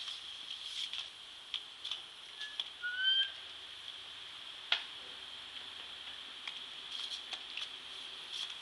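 Water jet from a pop-up garden sprinkler hissing steadily and spattering as a puppy paws and snaps at it, with scattered splashes and taps and one sharp tap near the middle. A bird chirps briefly about three seconds in.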